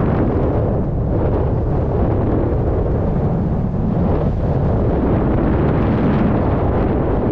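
Airflow in paraglider flight buffeting the camera's microphone: a loud, steady, deep wind rumble that swells and eases a little.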